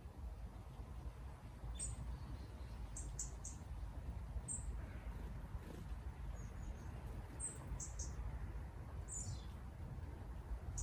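Small birds giving short, very high-pitched chirps, scattered singly and in quick runs of two or three, one sliding downward a little after nine seconds in, over a steady low rumble.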